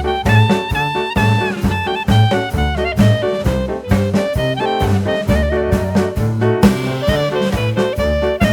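Background jazz music with brass and saxophone over a steady walking bass beat.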